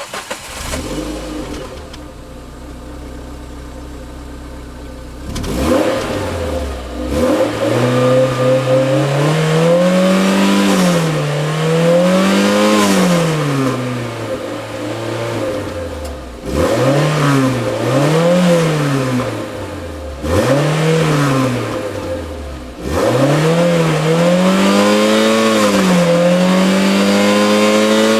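Renault Clio Renaultsport 197's naturally aspirated 2.0-litre four-cylinder engine catching and idling steadily, then blipped through a series of rising and falling revs from about five seconds in, held at high revs near the end.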